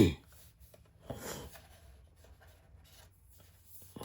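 Screwdriver working a small screw out of a talking doll's body: faint scraping and rubbing, with one brief louder scrape about a second in.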